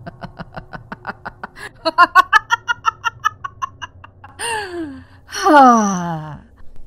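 A woman's acted laugh: a rapid chuckle that climbs into a high-pitched cackle about two seconds in, then two long laughs sliding down in pitch.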